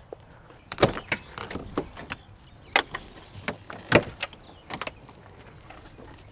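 A van's rear cargo doors being unlatched and swung open: a string of sharp metallic clicks and clunks from the handle, latches and hinges, the loudest about one and four seconds in.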